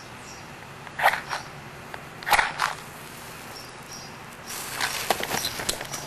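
A few sharp clicks, then about four and a half seconds in a steady hiss with small crackles starts up: a small firework's fuse burning.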